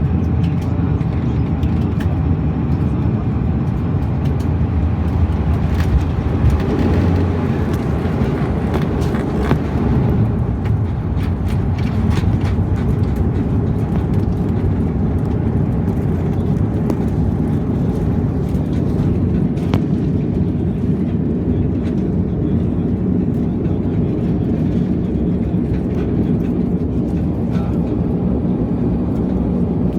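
Bombardier Dash 8 Q400 cabin noise: the steady low rumble of its turboprop engines and propellers, with scattered knocks and rattles.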